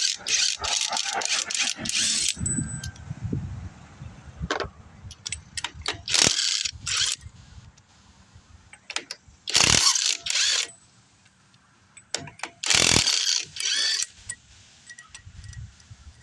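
Metal ratcheting and clanking of hand tools working on a truck wheel, in several loud bursts of a second or two with quieter pauses between.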